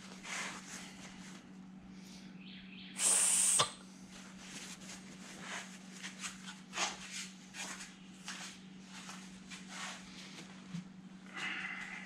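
A short hiss from an aerosol spray can about three seconds in, amid light clicks and taps of small metal engine parts being handled, over a steady low hum.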